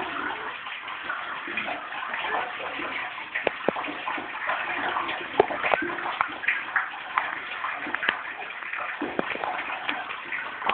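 Rainwater pouring into a well and splashing onto the water at the bottom: a steady splashing hiss with scattered sharp drips and plinks.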